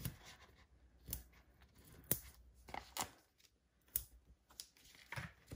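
Paper craft pieces handled on a tabletop: light taps, clicks and rustles of cardstock and a foam adhesive sheet being picked up and pressed down, a sharp click about every second.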